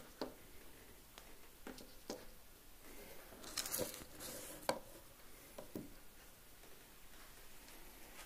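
Faint handling noise: scattered soft clicks and rustles, with a louder rustle about three and a half seconds in and a sharp click just under five seconds in.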